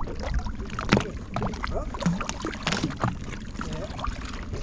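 Fishing boat's engine running steadily, with repeated sharp knocks and clatter on board.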